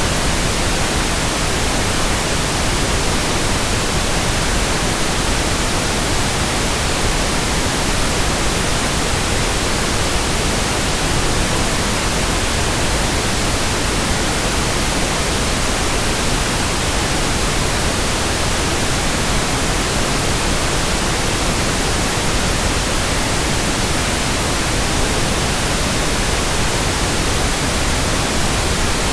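Steady pink noise: an even, unbroken hiss that does not change.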